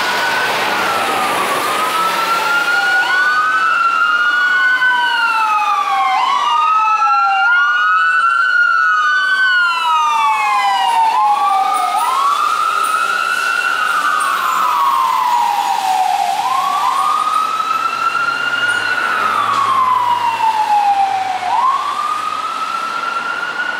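Fire ladder truck's wail siren on an emergency run, rising and falling slowly about every three to four seconds, with sweeps overlapping at times. It is loudest through the middle as the truck passes close by.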